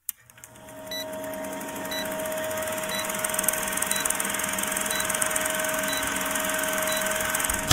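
Old-film countdown intro sound effect: a film projector's steady rattling whir with a short high beep about once a second. It ends in a sharp pop just before cutting off.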